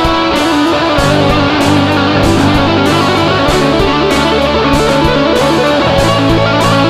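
Instrumental passage of a band-arranged worship song: guitars and bass over a steady drum beat, with no singing.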